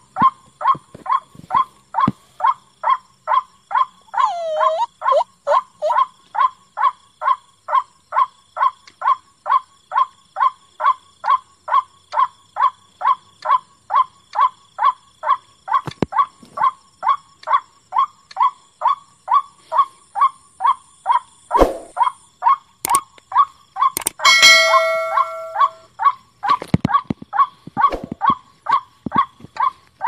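White-breasted waterhen calling, a loud monotonous 'kwak' note repeated about twice a second without a break. About three-quarters of the way through, a different drawn-out call of a second or so cuts across it.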